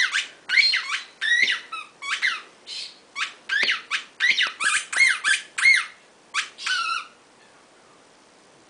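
Siberian husky whining: a rapid run of about fifteen short, high-pitched cries, each rising and falling in pitch. They stop about seven seconds in.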